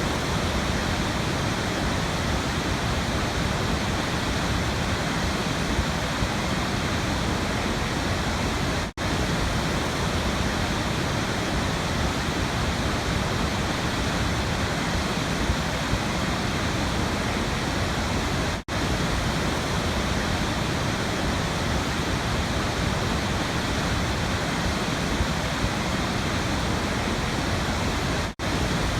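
Steady rushing of a waterfall. It cuts out for a split second three times, about ten seconds apart.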